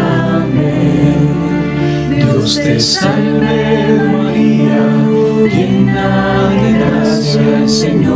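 Voices singing a slow devotional song together, with long held notes and the soft hiss of sung consonants now and then.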